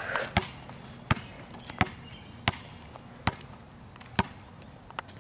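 A basketball being dribbled on an asphalt court: about six sharp bounces, one every half to three-quarters of a second.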